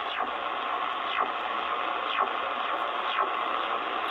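CODAR HF ocean radar signal received in USB on a Sangean ATS-909X2 shortwave receiver at 4450 kHz: a faint chirp repeating about once a second over steady band noise.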